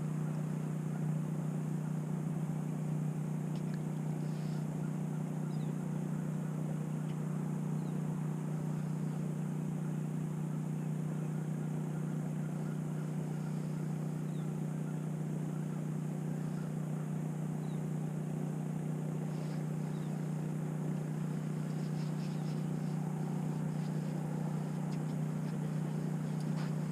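A steady low hum, like a small motor running, unchanged throughout, with a few faint light clicks near the end.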